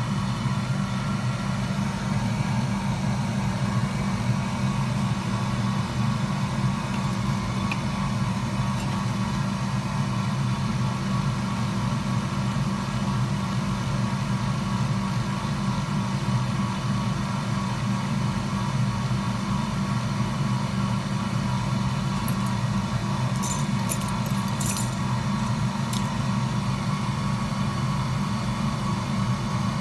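Steady low machine hum from a running motor or fan, unchanging throughout, with a few short sharp clicks near the end.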